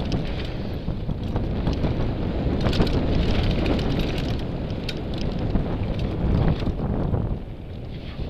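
Mountain bike riding down a dry dirt singletrack, heard from an on-board camera: tyres on dirt and the rattle and clatter of the bike over rough ground, with many short knocks. Wind buffets the camera's microphone throughout.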